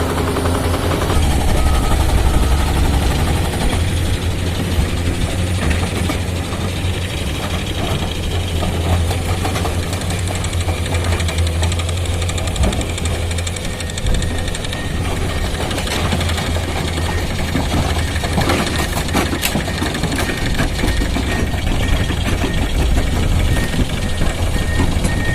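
Heavy earthmoving machinery working rock: a large diesel engine runs under load with a deep steady drone, and scattered knocks and clanks of steel on stone come mostly in the second half.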